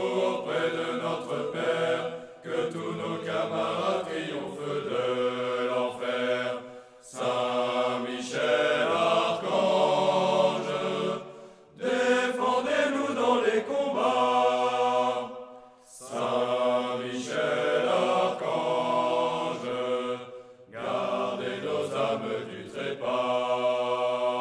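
A choir chanting a slow sung prayer in long held phrases, with short breaks for breath between them.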